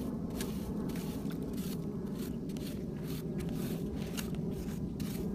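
A metal digging blade chopping and scraping into wet, stony soil with irregular short scrapes and knocks, over a steady low rumble.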